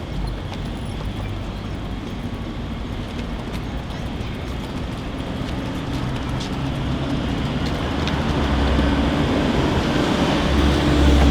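Ambient sound of a small hair salon on a public housing estate: a steady low hum and rumble under an even hiss. It grows gradually louder over the last few seconds.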